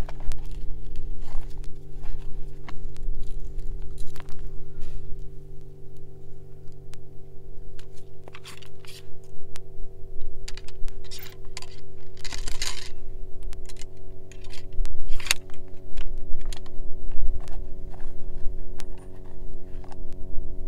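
An 1854 Lorenz muzzle-loading rifle-musket being loaded: paper-cartridge handling and the steel ramrod scraping and clinking in the barrel as the load is rammed home. It comes as a run of sharp metallic clicks and scrapes over a steady low hum.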